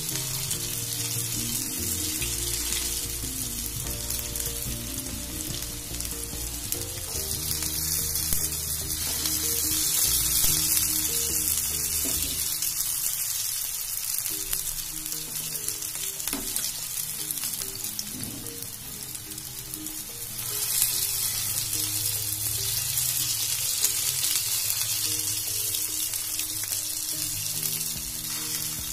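Hot oil sizzling steadily as soybean seekh kababs shallow-fry in a flat pan.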